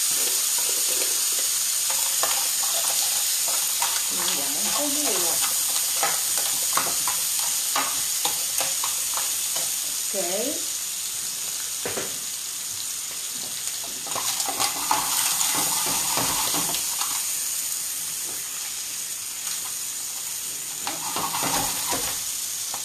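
Mussels frying in a pan of oil and soffritto, a steady sizzle, with the shells clicking and knocking as tongs stir and turn them.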